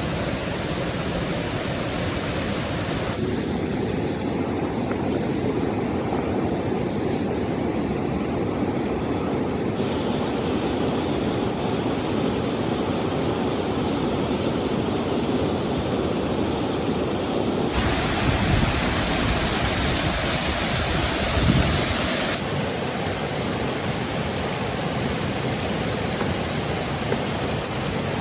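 Steady rushing of a river and falling rain. Its tone shifts abruptly several times, with a deeper low rumble for a few seconds past the middle and a single small click near the end.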